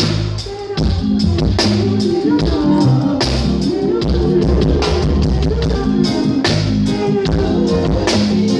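Live reggae band playing through a large stadium PA during a sound check: drum kit keeping a steady beat over deep bass, with other instruments and some singing.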